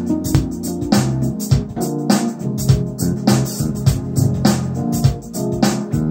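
Electronic keyboard playing the instrumental introduction to a gospel song over a steady drum beat.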